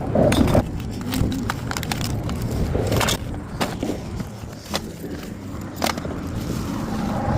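Scattered knocks and clatter of trash being picked up and handled, over a low steady rumble.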